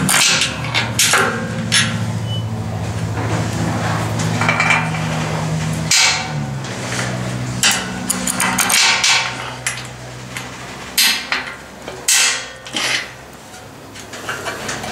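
Metal knocks and clicks as a socket forces push-on retaining clips down over the heads of carriage bolts, with several sharp knocks about six seconds in and again between eleven and thirteen seconds in. A low steady hum runs under the first two thirds.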